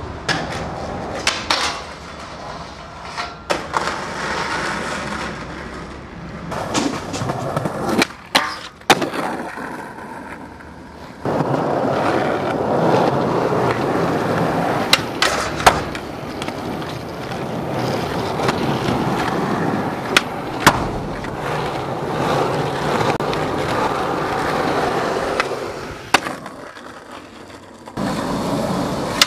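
Skateboard wheels rolling over pavement in several runs, broken by sharp wooden clacks of the tail popping and the board landing.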